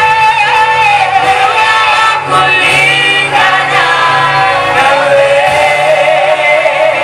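A choir singing a Swahili gospel worship song, its voices held on long, wavering notes over steady low accompaniment.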